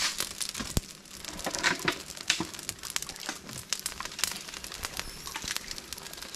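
Dry palm fronds crackling and snapping irregularly as they burn in an open fire, with rustling as fronds are shifted over the flames.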